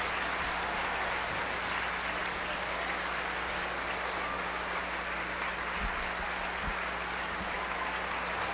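Audience of school students applauding steadily.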